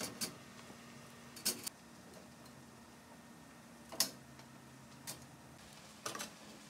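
About five sharp clicks and knocks, spaced irregularly, from kitchen utensils and cookware being handled, over a faint steady hum.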